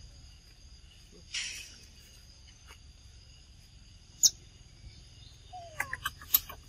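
Steady high insect buzzing, with a brief rustling hiss a second and a half in, a single sharp click about four seconds in, then several quick clicks and a short falling squeak near the end as the macaques move about.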